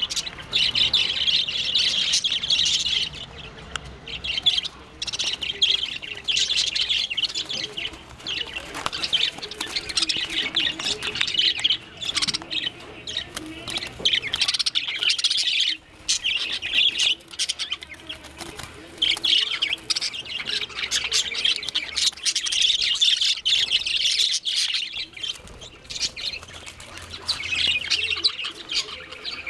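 Two parakeets fighting, screeching and chattering harshly in bouts of a few seconds with short breaks, with wings beating as they grapple: aggressive calls in a fight over a nest.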